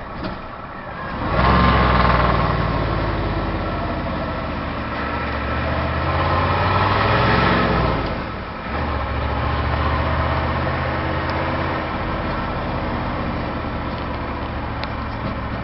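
Turbocharged car engine pulling hard through a loud exhaust, its pitch climbing for about six seconds, then dipping about eight seconds in and running steadily after. A little turbo whistle is hard to hear over the exhaust.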